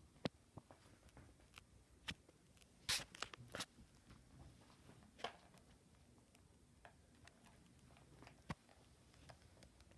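Near silence broken by scattered faint clicks and rustles, with a small cluster about three seconds in: movement and handling against bedding.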